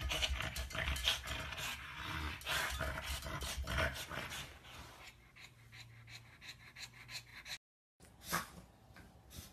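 French bulldog panting and sniffing as it noses and paws at a glass shelf, with many quick taps on the glass for about four seconds before it goes quieter. After a short break near the end, one brief loud sound.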